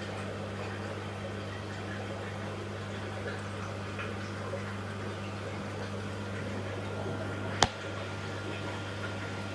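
Steady low electrical hum of running aquarium equipment, with a faint hiss behind it. A single sharp click stands out about seven and a half seconds in.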